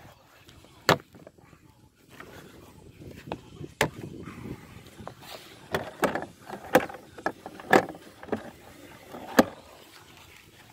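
Hinged plastic crate lid being handled and opened: its interlocking plastic flaps give sharp knocks and clacks, one loud knock about a second in and a cluster of knocks and rattles from about six to nine and a half seconds, with handling rustle in between.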